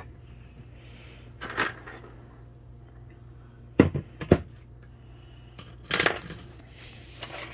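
Small steel bolts clinking against each other and against metal as they are handled and set down: about five separate clinks, one near the end with a bright metallic ring.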